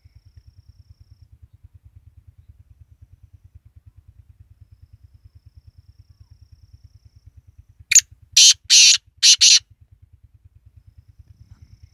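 Black francolin calling once, about eight seconds in: a loud phrase of five short notes lasting about a second and a half. A low, rapid throbbing hum runs underneath.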